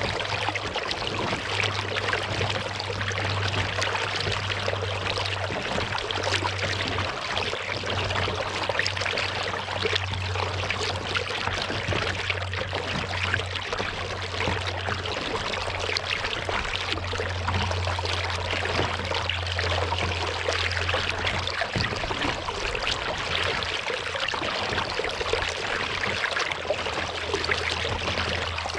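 Lake water trickling and splashing around a paddled kayak, with a steady low hum underneath.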